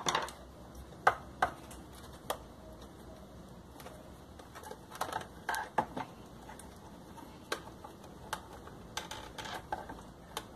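Scattered light clicks and knocks of hard plastic as the housing of a Lorenzetti Acqua Ultra electric shower is handled and turned over. The clicks come singly at first, then in a cluster about five seconds in, and in a quicker run near the end.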